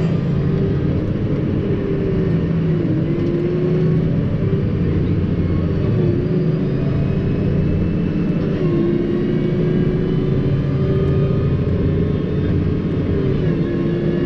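New Holland T6.180 tractor's six-cylinder diesel running steadily under load while towing a slurry tanker, heard from inside the cab. A drivetrain whine rides over the low engine rumble and dips briefly in pitch about four times.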